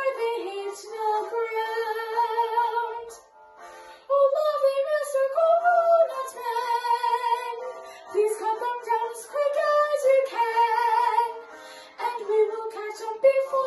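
A girl singing a song solo, her voice held on long notes with vibrato, with a short pause about three seconds in.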